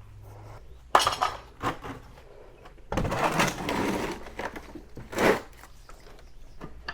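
Metal parts of a motorcycle's rear wheel assembly clinking and rattling as they are handled: a sharp clank about a second in, a longer rattling scrape in the middle, and another clink near the end.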